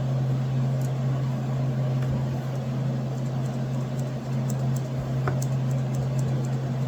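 A steady low hum, with a few faint, light clicks of the Ozark Trail Multiforce multi-tool's scissors being opened and worked.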